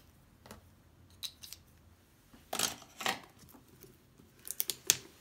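Plastic shrink wrap on a cardboard box being picked and cut open: short scratchy scrapes and clicks, a few single strokes spaced apart, then a quick run of them near the end.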